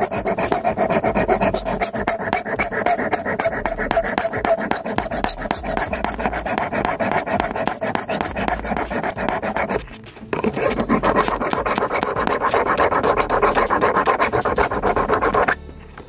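Hand file rasping back and forth on a soft battery terminal clamp, widening the clamp's gap so it will grip the post tighter. The filing breaks off briefly about ten seconds in, resumes, and stops abruptly just before the end.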